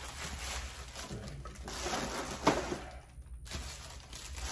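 Plastic and cardboard packaging crinkling and rustling as the inner shell of a camera box is pulled out, with one sharp snap about two and a half seconds in.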